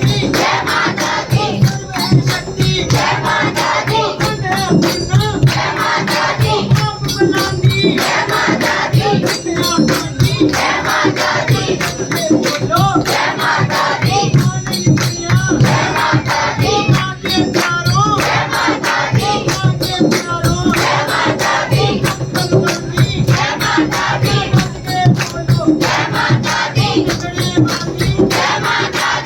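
Hindu devotional song sung by a group of voices over a steady percussion beat.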